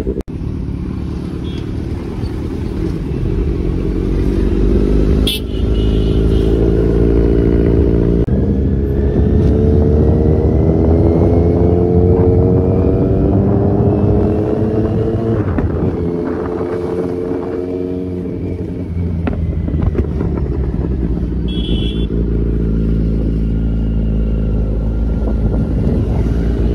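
Kawasaki Z900 inline-four with an SC Project full exhaust, accelerating hard through the gears. The engine note climbs and drops back at each gear change, several times over, with wind rushing over the microphone.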